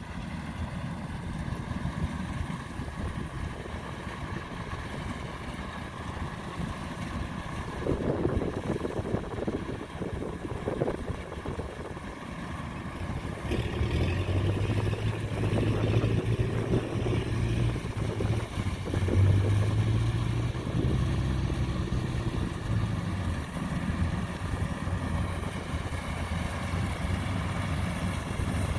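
DC-105X combine harvester running steadily, its engine note growing louder and deeper about halfway through.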